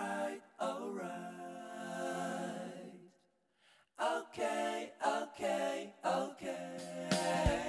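Background music: a singing voice with little or no accompaniment, in held phrases, breaking off for about a second near the middle.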